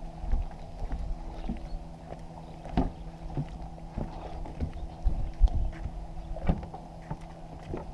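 Footsteps on the wooden planks of a jetty, a knock a little under twice a second as someone walks along it. A steady low hum runs underneath.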